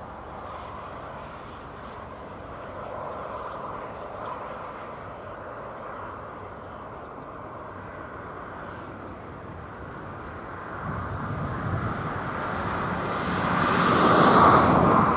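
Steady open-air background with a few short, high chirps of a small bird. About two-thirds of the way in, a motor vehicle approaches and passes, growing louder to its loudest near the end.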